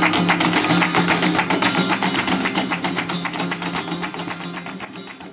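Flamenco music: fast, dense percussive strikes of zapateado footwork and palmas hand clapping over flamenco guitar, the whole fading out near the end.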